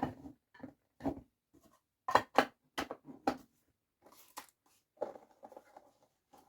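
A string of sharp hard-plastic clicks and knocks as speedcubes and their plastic boxes are handled, the loudest a quick pair about two seconds in, followed by lighter rattling clicks near the end.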